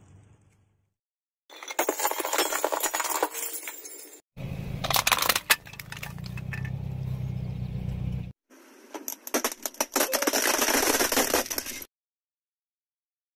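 Hard toys or objects being crushed, crackling, cracking and clinking in three separate stretches, each starting and stopping abruptly with dead silence between; a steady low hum runs under the middle one.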